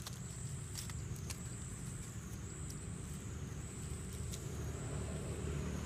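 Outdoor background sound: a steady low rumble with a thin, high-pitched whine over it and a few soft clicks.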